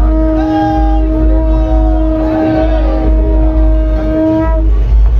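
Loud processional music with heavy, continuous bass and a long steady held note that stops about four and a half seconds in, with voices over it.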